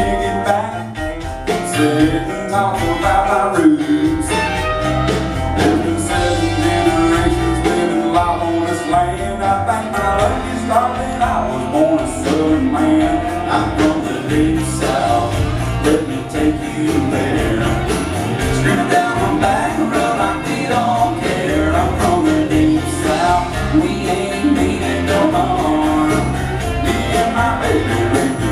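Live country band playing an instrumental break, with fiddle, electric and acoustic guitars and drums over a steady beat.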